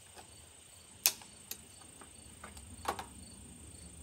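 A handful of sharp metallic clicks from hands working at the breech of a CVA Wolf .50-calibre muzzleloader, where a spent primer has been stubborn; the loudest click comes about a second in and another strong one near the three-second mark. Crickets chirp steadily throughout, a high drone with a short chirp about three times a second.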